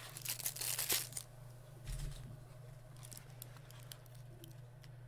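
Packaging rustling and crinkling as it is handled for about a second near the start, then a soft thump about two seconds in and a few light clicks.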